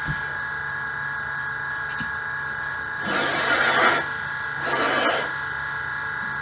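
Two long rushes of breath blown out, the first about a second long and the second about half a second, over a steady electrical hum.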